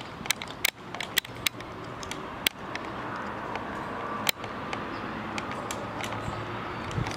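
Footsteps on a debris-strewn factory floor: a handful of sharp, irregular clicks and crunches in the first few seconds, over a steady background hiss.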